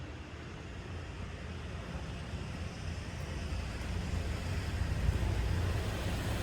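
Low, steady vehicle rumble that grows gradually louder.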